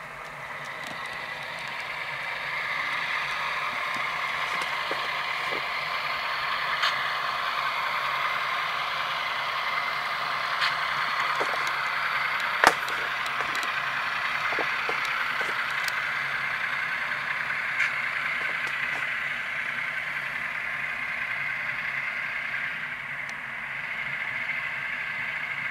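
HO-scale model diesel locomotive's Tsunami sound decoder playing a diesel engine sound through its small speaker, thin and steady with almost no bass. It grows louder over the first few seconds, with a few scattered sharp clicks.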